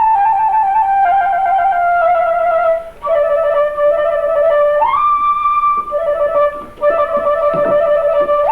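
Solo woodwind melody of slow, steady held notes, stepping downward and then leaping up about five seconds in. A few soft low thuds sound near the end.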